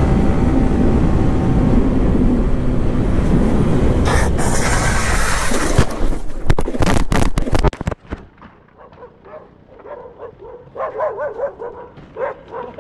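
Motorcycle ridden at speed with heavy wind and engine noise. About four seconds in it crashes: a harsh scraping slide along the asphalt, then a run of knocks as the handlebar-mounted phone tumbles, cutting off abruptly about eight seconds in. After that a dog yips and barks several times.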